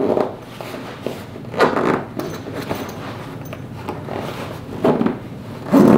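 Fabric rustling and scraping as a stuffed pillow is crammed into its zippered cloth cover and the zipper is worked, with a few short louder bursts of handling noise.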